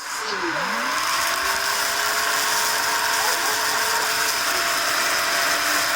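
Cordless stick vacuum switched on and running with a loud, steady hiss. A lower motor tone rises in pitch over about the first second as it spins up to speed, then holds steady. It is running again now that the cut negative wire in the floor head has been rejoined.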